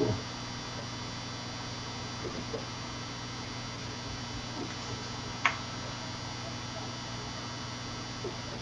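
Steady low electrical hum, with a soft knock right at the start and a single sharp click about five and a half seconds in.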